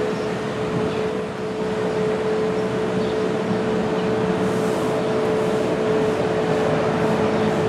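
Engines of asphalt paving equipment (roller, skid-steer loader, dump truck) running steadily, with a constant hum over a noisy background.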